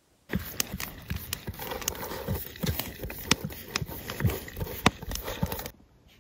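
Dog licking and lapping inside a metal camp cooking pot, a quick irregular run of wet smacks and tongue clicks against the pot. It starts about a third of a second in and cuts off abruptly near the end.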